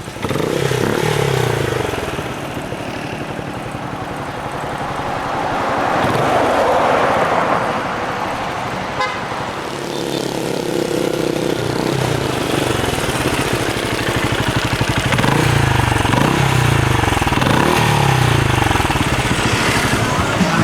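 Benelli Imperiale 400's single-cylinder engine running and being revved, its pitch rising and falling again and again, with a quick series of revs in the last few seconds.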